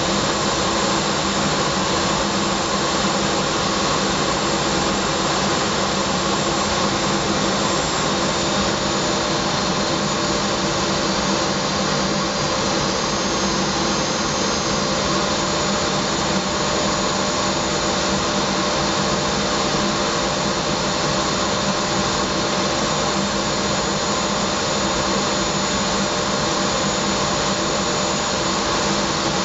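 Jet aircraft cockpit noise: engine and rushing airflow heard from inside the cockpit, an even loud hiss with steady humming tones beneath it and no change in pitch.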